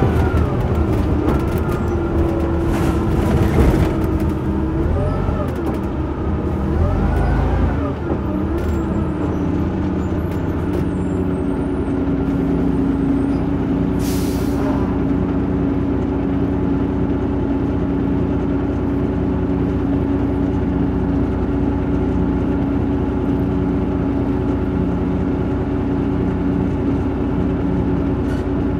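Cummins LT10 diesel engine of a Leyland Olympian double-decker bus, heard from on board, its pitch shifting for the first several seconds and then running steadily. A short hiss of air about 14 seconds in.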